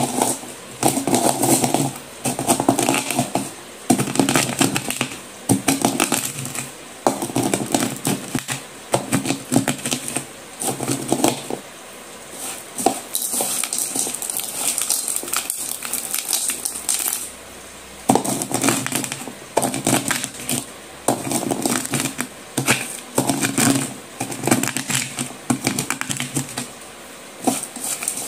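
Broken slate-pencil pieces crunching and clinking against each other and the bowl as they are crushed with a pestle and stirred by hand, in gritty strokes about once a second. Around the middle the strokes give way for a few seconds to a hissier scraping.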